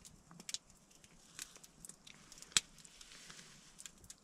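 Quiet eating sounds: a fork clicking and scraping on a plastic plate and a child chewing, scattered small ticks with one sharper click about two and a half seconds in.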